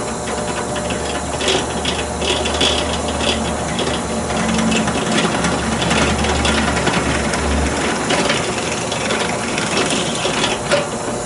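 Benchtop drill press running, its twist bit cutting an oversized hole through a wooden tiller. The motor hums steadily under the cutting noise.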